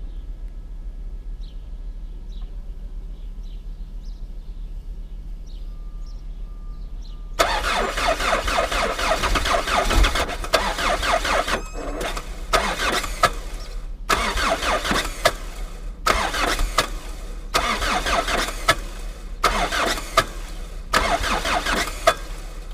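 Cold diesel engine of a Chrysler Voyager being cranked on starting ether in hard frost, its glow plugs suspected stuck: a hard start. It turns over from about seven seconds in, first continuously for about four seconds, then in a run of shorter bursts with brief breaks between them.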